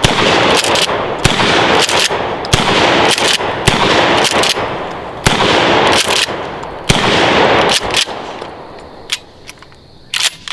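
Rapid fire from a 12-gauge Mossberg 500 pump-action shotgun: six loud shots about a second to a second and a half apart, each trailing a long echo, with the pump action being worked between them. It ends with a few sharp metallic clicks.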